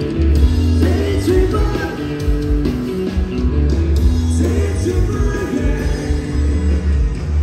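Live rock and roll band playing through a PA system, with electric guitars, drums and a singer over a heavy, steady bass.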